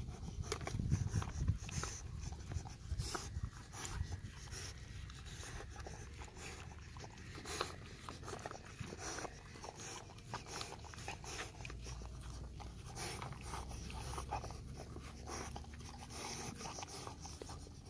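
Dog licking leftover cooked rice off a plastic plate: a run of quick, irregular wet clicks and scrapes as its tongue and muzzle work over the plastic.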